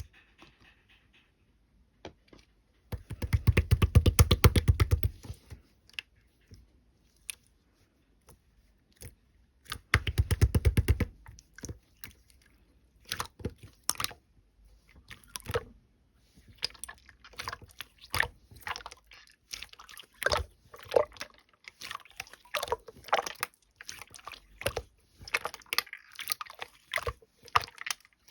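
Slime being squished and mixed by hand, giving sticky, wet pops and crackles. Twice early on there is a run of fast, closely packed clicking, and after that the popping goes on in irregular clusters.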